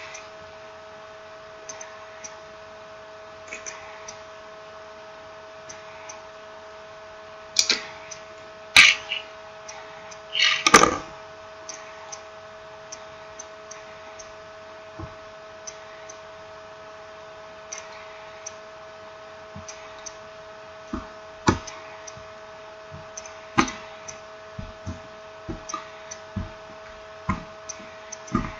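Scattered small clicks and taps of phone parts and tools being handled during smartphone reassembly, with a few louder scraping rustles about 8 to 11 seconds in, over a steady electrical hum.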